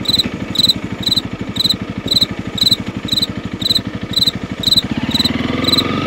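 Honda CRF300L's single-cylinder engine idling, then revving up as the bike pulls away near the end. Over it, a high electronic beep repeats about twice a second.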